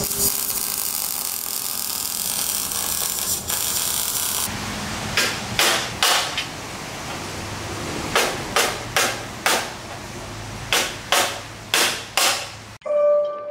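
An electric welding arc sizzling and crackling on steel for the first few seconds. After that, a hammer strikes the steel bumper about a dozen times in quick irregular groups, each strike ringing briefly. Chime-like music starts near the end.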